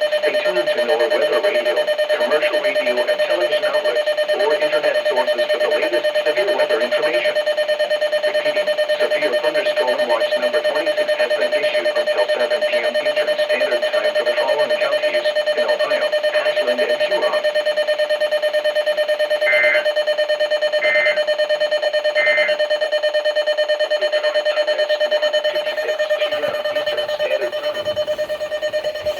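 Electronic alert tone sounding steadily, with muffled voice-like audio underneath. Three short higher beeps come about twenty seconds in, and the sound drops somewhat in level near the end.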